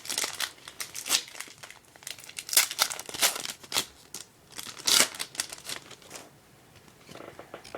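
A hockey card pack wrapper being torn open and crinkled in the hands, a run of sharp crackling rustles that dies down about six seconds in.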